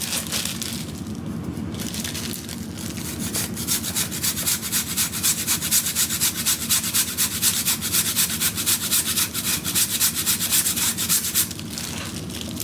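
A frozen peach scraped on a handheld fine rasp grater: rapid, even scraping strokes that start about two seconds in and stop shortly before the end.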